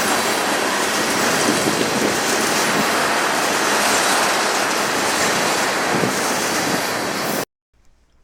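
Freight train rolling past at close range: steady rushing wheel-and-rail noise with some wheel squeal, which cuts off suddenly near the end.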